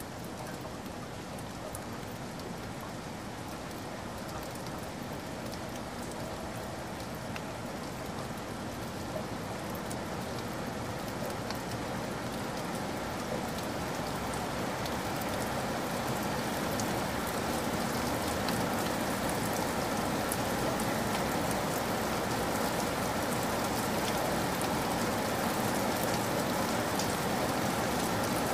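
Steady rain falling, an even hiss with scattered drop ticks, slowly growing louder.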